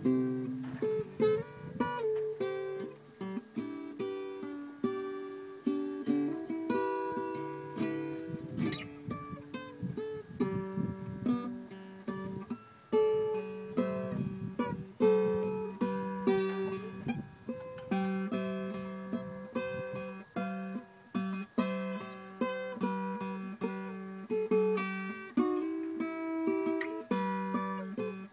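Acoustic guitar music: plucked notes and strummed chords.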